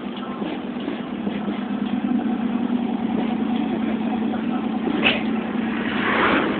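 Steady engine and road noise heard from inside a moving van, a low drone. There is a short sharp sound about five seconds in and a brief rush of noise near the end.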